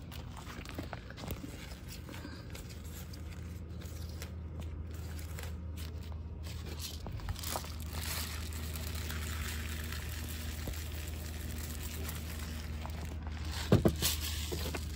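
Rustling and crinkling handling noise as granular fertilizer is sprinkled around sweet potato vines in a fabric grow bag, over a steady low hum. A sharp knock comes a little before the end.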